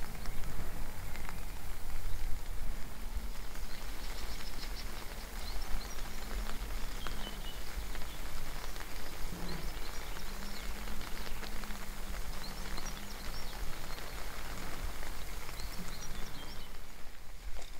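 Small songbirds chirping and singing in spring woodland, many short high notes through most of the stretch, over a steady low rumble.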